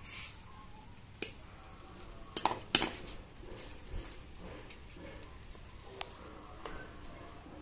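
A handful of sharp metallic clicks and clacks from a pair of pliers used to snip rose stems and then set down on concrete, the loudest pair about two and a half seconds in.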